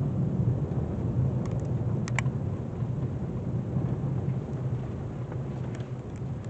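A car's engine and road noise heard from inside the cabin while driving slowly: a steady low hum. A couple of faint clicks come about two seconds in.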